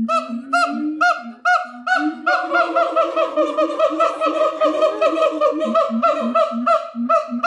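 Siamangs singing: a rapid series of loud, honking hoots, a few a second at first and quickening after about two seconds, with a lower series of booming notes sounding beneath them.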